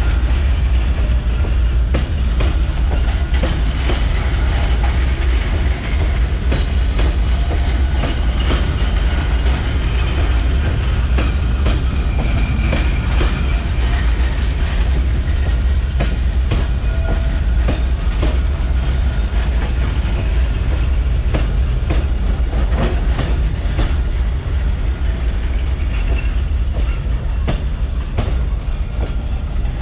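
Freight train of boxcars rolling slowly past close by: a steady, loud rumble of steel wheels on rail, with frequent clicks as the wheels cross rail joints and a few faint, brief wheel squeals.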